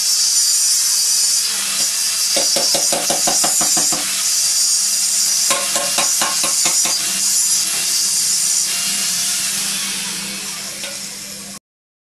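Corded electric angle grinder grinding a metal part: a loud, steady high hiss over the motor's hum, with two spells of rapid rattling chatter as the disc bites. The sound fades gradually near the end, then cuts off abruptly.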